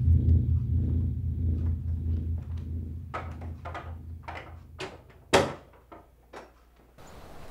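A low droning rumble fades away, a few soft knocks and rustles follow, and then an interior door swings shut with one loud thud about five seconds in, followed by two faint clicks. A steady hiss starts near the end.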